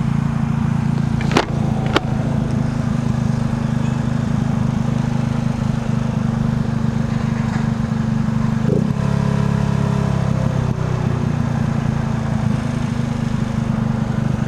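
Motorcycle engine running steadily while riding, with wind noise over it. Two sharp clicks come about a second and a half and two seconds in.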